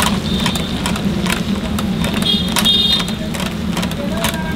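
Chickpea batter being pushed by hand through a perforated metal plate into a pan of hot oil, the oil crackling and spitting with many sharp pops over a steady low hum. A few brief high tones sound a little past the middle.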